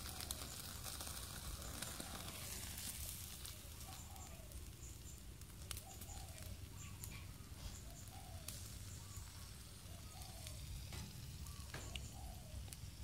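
Meat grilling in a wire basket over a clay charcoal stove: faint sizzling with scattered crackles and pops as fat drips onto the glowing coals and flares.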